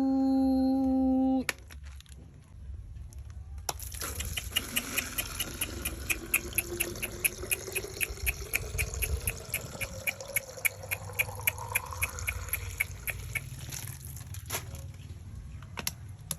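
Liquid pouring into a container, its pitch rising steadily as the container fills, over a rapid, even clicking of about four a second. It opens with a steady buzzing tone that cuts off after about a second and a half.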